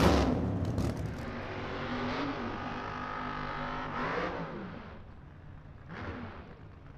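Drag car engine idling roughly and revving up in short blips a few times, level fading toward the end. It opens on the tail of a swooshing intro effect.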